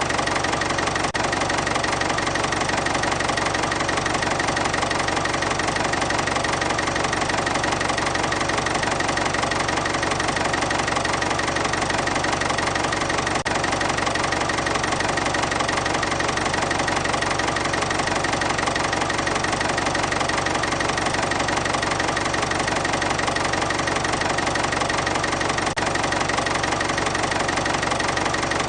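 Volvo EC240B NLC tracked excavator's 134 kW diesel engine running steadily at idle, with no change in speed.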